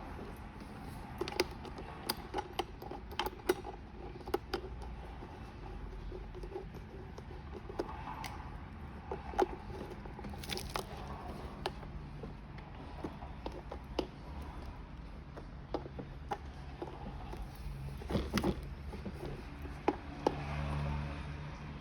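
Scattered clicks and light knocks of small hardware being handled while wheels are fitted onto a kids' ride-on car's axles, with washers and nuts tapping together.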